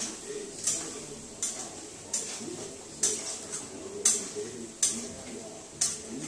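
Steel spoon scraping and clinking against a steel kadhai about seven times, roughly once a second, as paneer cubes are stirred while deep-frying in hot oil, with a faint sizzle underneath.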